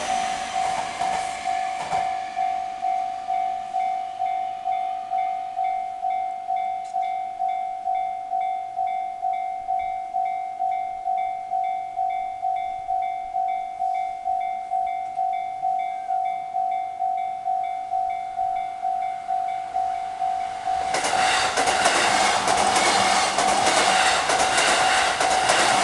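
Railway level-crossing warning bell ringing with evenly repeated dings. A train passes through the crossing from near the end, its wheel and running noise loud over the bell.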